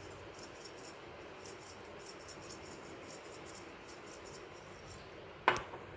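Chili flakes rattling in a shaker bottle being shaken quickly over a bowl, about four to five faint ticks a second, then one sharp knock near the end.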